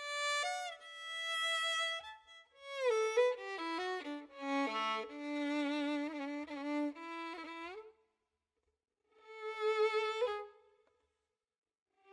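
Violin melody in slow, expressive phrases with vibrato and sliding notes, pausing for about a second about two-thirds of the way through before a new phrase begins.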